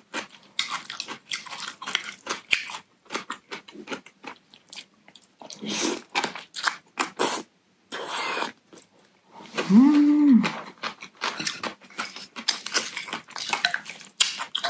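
A person eating naengmyeon (Korean cold noodles): wet chewing and mouth clicks, a few slurps of noodles in the middle, and a short hummed "mmm" about ten seconds in.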